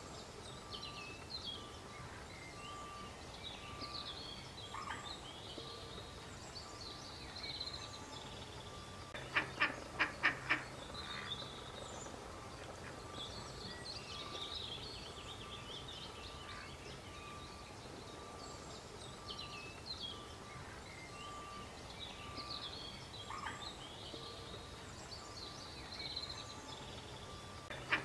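A duck quacking in a quick series of about five loud quacks about ten seconds in, with another series starting at the very end. Small birds chirp throughout, and a faint short note repeats steadily in the background.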